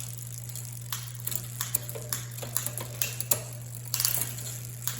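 Irregular light clicks and ticks from a bicycle's chain and gears being worked by hand, over a steady low hum.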